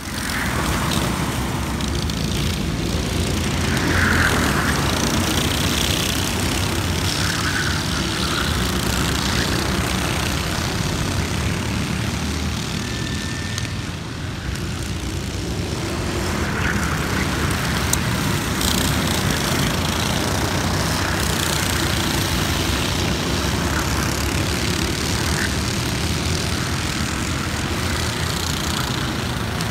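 Racing kart engines running as karts lap the circuit, a steady buzzing drone whose pitch swells and fades as the karts pass and change speed.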